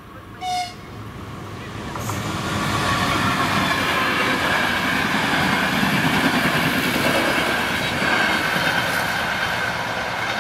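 Passenger train rolling past a level crossing, its coaches' wheels rumbling and clattering over the rails, with a thin steady whine riding on top. The noise builds about two seconds in and stays loud. Just before it, a brief high pitched tone sounds about half a second in.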